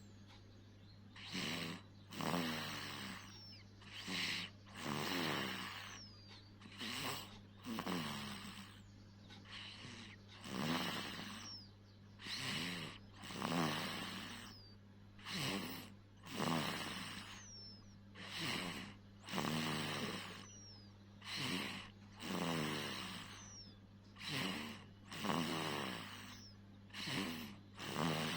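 Snoring in an even rhythm, one rasping snore every two to three seconds, rising and falling with each breath, over a steady low hum.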